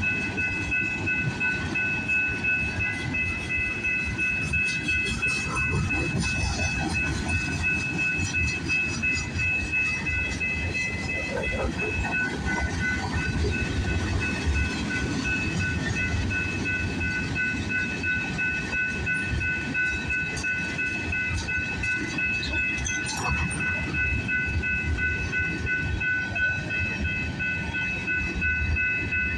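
CPKC freight train of intermodal and mixed freight cars rolling past, with a steady rumble and wheels clattering over the rail. A continuous high ringing of a few close tones sits over the noise of the train.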